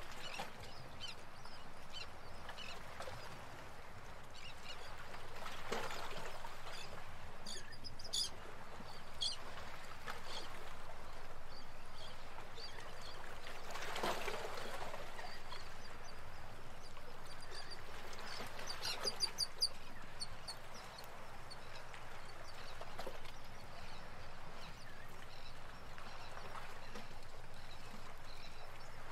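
Shallow river running over stones, with splashes of bare feet wading through the water and birds chirping in short bursts now and then.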